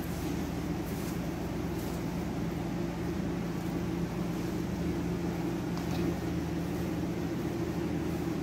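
Steady low mechanical hum with two held low tones, unchanging throughout, with a few faint, brief rustles of bed sheets being tucked in.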